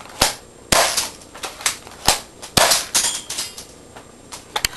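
Spring pump-action airsoft shotgun firing twice, about two seconds apart. Each shot is a loud snap followed by a brief hiss. Sharper single clacks fall in between and near the end.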